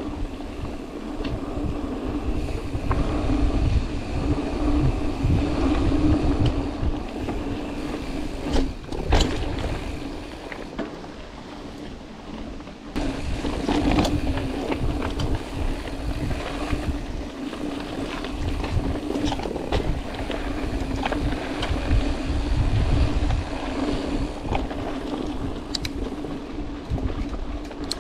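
Mountain bike being ridden fast over a dirt singletrack: tyre rumble and wind on the microphone, with scattered knocks and rattles from the bike over bumps, louder knocks about nine and fourteen seconds in, and a steady drone underneath.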